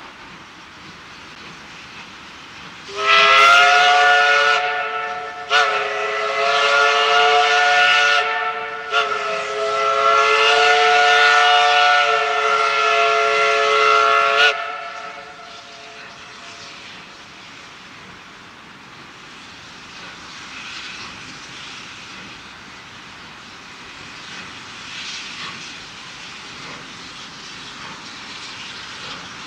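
Steam whistle of Baldwin 2-6-2 locomotive No. 12 sounding a chord of several tones in three long blasts with barely a break between them, the last the longest. It then gives way to a softer, steady hiss of steam.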